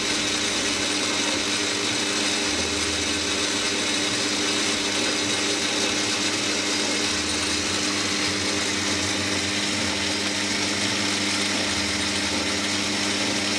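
Metal lathe turning down a 304 stainless steel shaft, the cutting tool taking a steady cut: an even machine hum under a high hiss from the cut.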